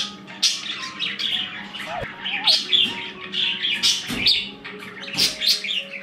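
Budgies chattering and chirping in quick, busy bursts, over background music with soft held notes.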